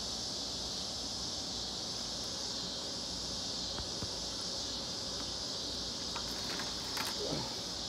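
Steady high-pitched insect chorus, like crickets or cicadas, with a few faint clicks about six to seven seconds in.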